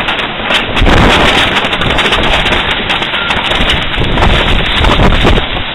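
Storm wind gusting hard against the microphone, a loud rumbling rush that swells and dips and steps up about a second in.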